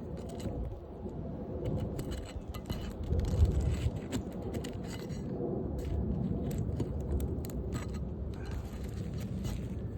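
A metal pry tool working under asphalt roof shingles to pull out roofing nails: repeated short metallic clinks and scrapes as the shingles are lifted and the nails worked loose.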